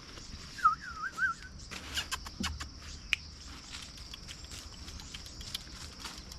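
A short, wavering animal call that rises and falls about three times, followed by a scatter of sharp clicks and knocks, over a steady high hiss.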